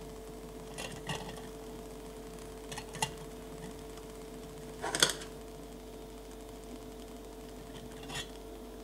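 Light clicks and knocks of wooden chopsticks and a small lid against a miniature cast-iron pot, four separate taps with the loudest about five seconds in, over a steady faint hum.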